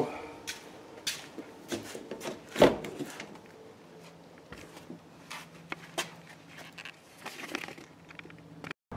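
Scattered clicks, knocks and rustling of someone climbing into a car's driver seat with a handheld camera, with one heavier thump about two and a half seconds in. A faint steady low hum comes in about four seconds in.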